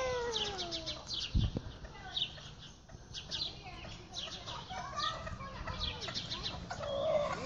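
Chickens clucking: short, quick calls in clusters, repeated every second or so. A drawn-out call falls away in pitch over the first second.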